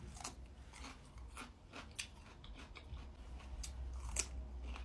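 Close-miked eating sounds: a person chewing, with irregular short crisp clicks and smacks from the mouth several times a second.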